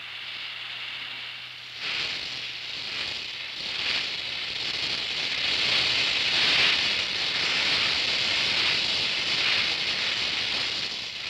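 Oxy-acetylene welding torch flame hissing and crackling as it melts the weld puddle on thick plate, growing louder about two seconds in.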